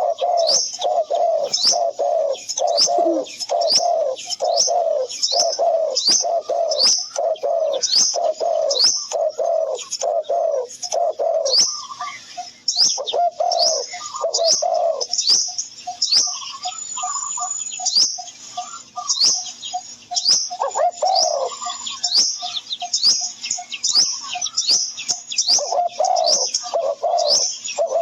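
Birds calling steadily: a low note repeated about twice a second, with high chirps repeating over it. Midway the low calls change to quicker, shorter pulses for several seconds.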